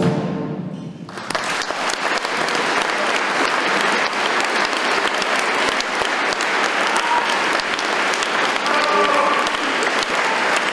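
The orchestra's last chord fades in the hall's reverberation, and about a second in an audience starts applauding steadily.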